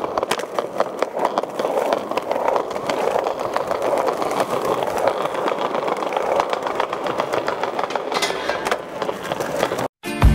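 Skateboard wheels rolling over rough pavement, a steady rumble dotted with small clicks from cracks and grit. It stops abruptly near the end.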